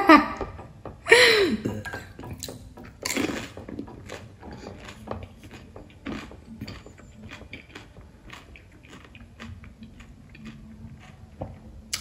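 Chewing a crisp pani puri shell: a run of small, irregular crunches and clicks, after a short voiced exclamation with falling pitch about a second in.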